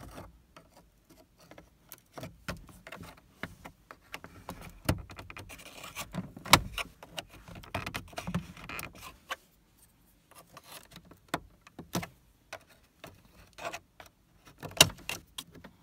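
A flathead screwdriver prying at a plastic switch panel in a Mk3 Volkswagen Jetta/Golf dashboard: scattered clicks, taps and short scrapes of plastic trim, the loudest about six and a half seconds in.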